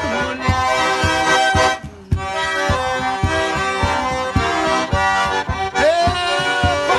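Button concertina playing a lively tune in held chords and melody, over a cajón keeping a steady beat. The music drops out briefly about two seconds in, then carries on.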